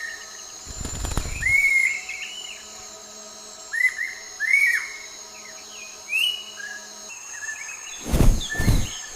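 Birds calling with short, arched whistled notes in loose groups, over a steady high insect drone. A low rumble about a second in and several loud low thuds near the end stand out above them.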